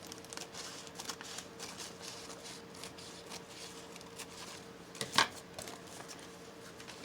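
Scissors snipping a piece off a doily, with light rustling of paper and lace as it is handled; one sharper click about five seconds in.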